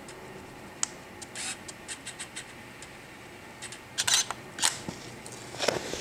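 Digital SLR camera shutter firing, with clicks from the camera being handled: one sharp click about a second in, a few small clicks, then a quick run of louder clicks around four seconds in. Rubbing and knocks follow near the end as the camera is moved.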